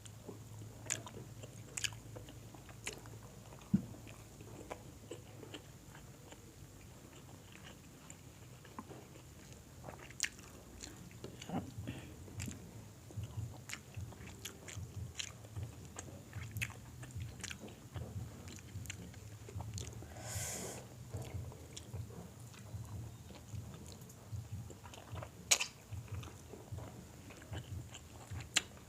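Close-miked chewing and biting of crispy food: steady wet chewing with sharp crunchy clicks scattered through, and a longer crunch about twenty seconds in.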